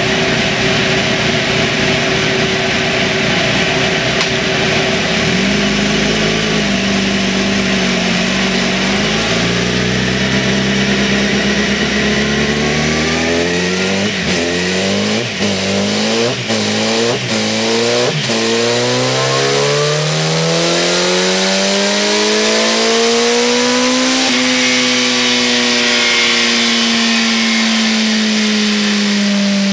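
Yamaha FZ1's inline-four engine with a GPR slip-on muffler, run on a chassis dynamometer. It runs steadily, then changes up through several gears, each change a short break in the sound. Then it makes one long pull with the revs climbing steadily for about six seconds, and the pitch falls away slowly as it winds down.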